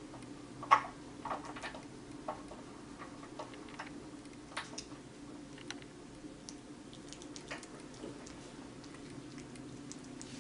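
Kitten licking and nibbling a watermelon slice: small, irregular wet clicks and smacks, the loudest about a second in, over a low steady hum.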